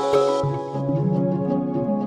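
Soft instrumental background music, with evenly repeating notes over held tones.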